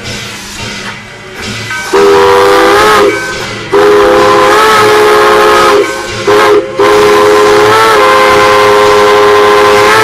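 Chime steam whistle of Nevada Northern Railway locomotive No. 81 sounding a chord of several notes in four blasts: long, long, short, long. This is the pattern of the standard grade-crossing whistle signal.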